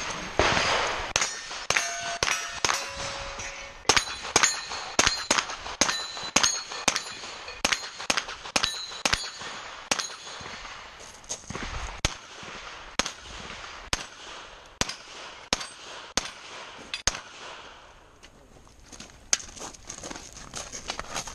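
A rapid string of gunshots at steel targets, with many hits ringing out with a metallic clang, about one to two a second. The firing eases briefly near the end, then resumes.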